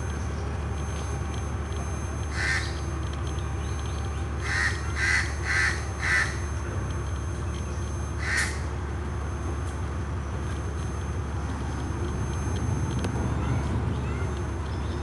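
Harsh bird calls, six in all: one, then four in quick succession about half a second apart, then one more a couple of seconds later, over a steady low rumble.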